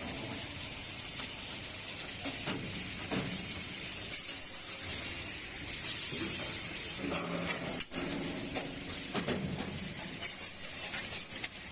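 JMD arbitrary-angle CNC automatic cutting center for aluminium profiles running: steady machinery noise with metallic clinks and rattles. Two brief high whistling tones come about four seconds in and again near the end.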